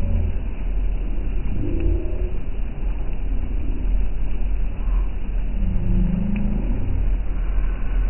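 Amphibious tour vehicle under way on the water: a steady low engine rumble mixed with water rushing and churning along the hull.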